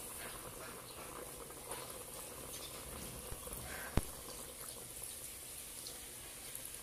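7-Up soda poured from a glass bottle into a metal pot of pork, a steady trickling and fizzing of liquid. One sharp click about four seconds in.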